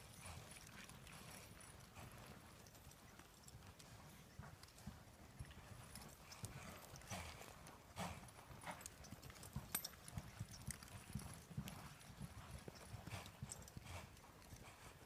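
Faint hoofbeats of a cutting horse on soft arena dirt as it works a cow: irregular quick steps and stops, with sharper, more frequent hits from about halfway through.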